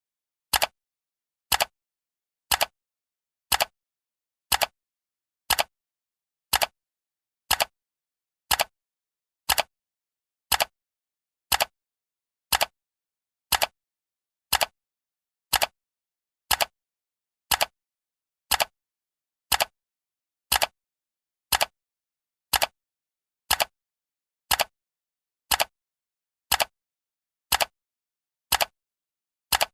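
Clock ticking sound effect: one short, sharp tick each second, evenly spaced, with silence between.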